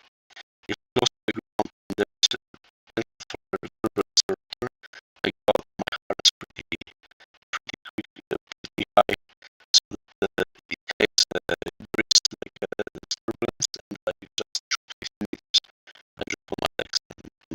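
Music made of short, clipped plucked or scratched notes in an irregular, stop-start rhythm, with brief silences between them.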